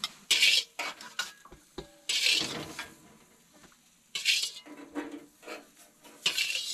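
Metal spoons scraping and clinking against a large metal cooking pot and metal plates as food is dished out. There are four short scrapes, the longest about two seconds in, with light clicks and clinks between them.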